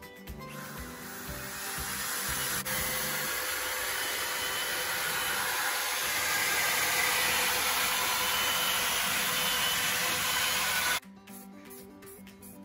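Electric drill with an abrasive brush scrubbing the metal housing of a starter motor held in a vice: a steady harsh hiss that builds over the first couple of seconds and cuts off abruptly near the end, leaving background music.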